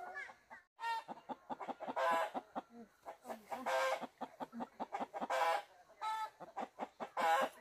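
A chicken cackling: quick clucks broken by four loud, long squawks, one about every two seconds.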